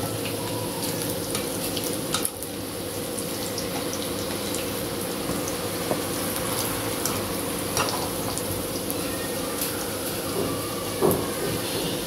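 Onion egg pakodas deep-frying in a wok of hot oil, sizzling steadily, with a few clicks and scrapes of a wire-mesh skimmer against the pan as they are turned. A steady low hum runs underneath.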